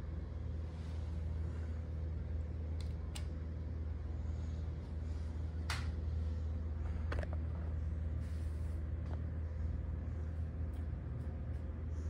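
Hunter Lantern Bay 54-inch ceiling fan running steadily: a constant low hum with a faint steady tone, broken by a few short clicks about 3, 6 and 7 seconds in.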